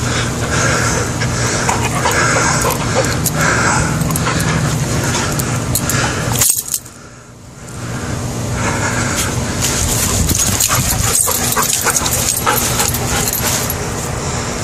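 McNab dog whining with short yips, over and over, eager to play.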